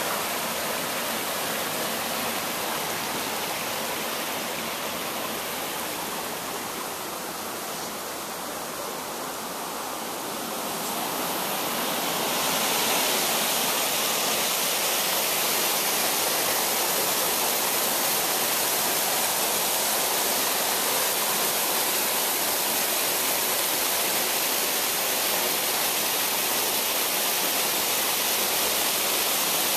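Glen Creek's water rushing through a narrow rock slot in the gorge: a steady hiss of moving water that eases slightly around seven seconds in and grows louder from about twelve seconds in.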